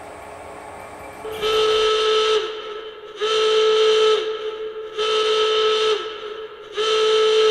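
Warning horn sound effect: four long, evenly spaced blasts of a steady tone, each falling off in pitch as it ends.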